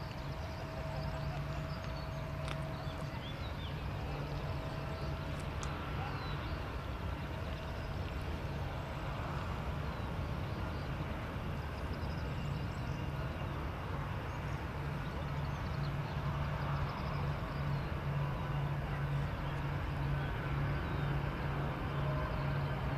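Distant rumble of an Airbus A320-214's CFM56 jet engines as the aircraft moves along the runway: a steady low drone with a pulsing hum, growing slightly louder toward the end. A few faint bird chirps sound over it early on.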